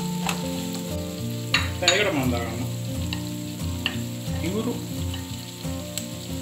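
Sliced onions sizzling in hot oil in a non-stick frying pan while being stirred with a wooden spoon, with a few sharp knocks and scrapes of the spoon on the pan about a second and a half to two seconds in.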